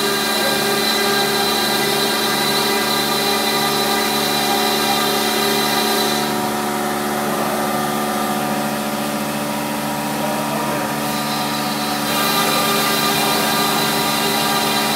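CNC router spindle running steadily, its bit cutting through a wooden sheet: a constant whine made of several steady pitches over a cutting hiss. The hiss fades for about six seconds in the middle, then comes back.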